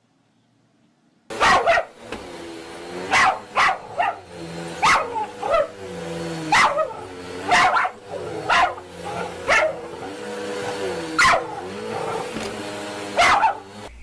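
A dog barking over and over, about one bark a second, starting suddenly a little over a second in.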